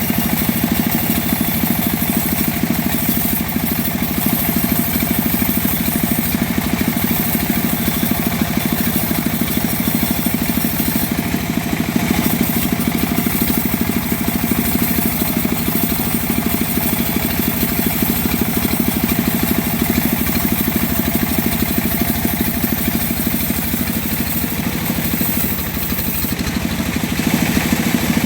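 Engine of a homemade bandsaw mill running steadily at an even speed, with a slight drop in level near the end.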